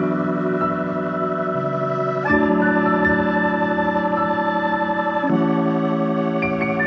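Background music of held organ-like chords that change about every three seconds.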